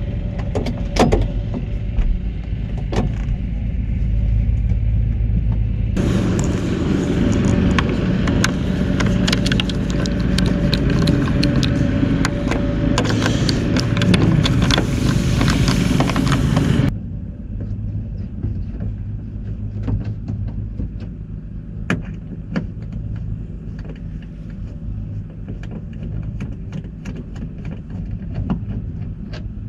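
Steady low vehicle rumble with scattered sharp clicks and knocks from hand and screwdriver work on a VW T4 van's door mirror mount. From about six seconds in the sound is louder and hissier, then it drops back abruptly at about seventeen seconds.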